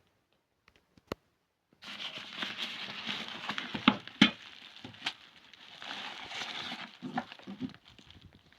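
Crinkling and rustling of something being handled, like plastic or paper, with a couple of sharp knocks about four seconds in and a few lighter taps after.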